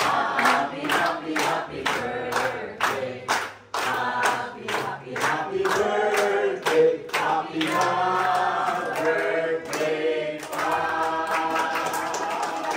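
A group of people singing a birthday song together, clapping along in time at about two claps a second.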